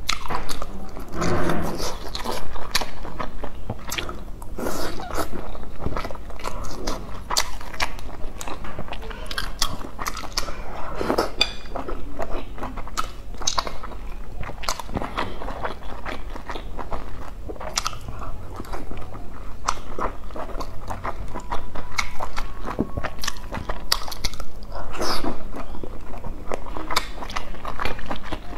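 A person chewing soft boiled dumplings, with wet smacking mouth sounds and frequent irregular clicks.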